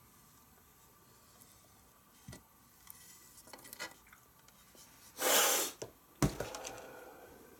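Handling noise from a katana and its plain wooden shirasaya hilt: a few faint clicks and rubs, then a brief rush of noise about five seconds in and a single sharp knock just after six seconds.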